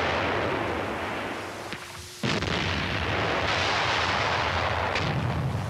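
Gunfire and artillery fire on a 1944 newsreel soundtrack, a dense continuous din of battle noise. It fades briefly about a second and a half in, then cuts back in sharply a little after two seconds.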